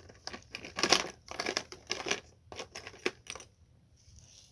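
Plastic crinkling and crackling as it is handled, a quick, irregular run of rustles that stops about three and a half seconds in.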